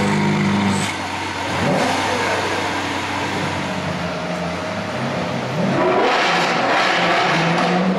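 V12 supercar engines revving: a rise in revs a little under two seconds in, then a louder run of revs and acceleration from about six seconds in.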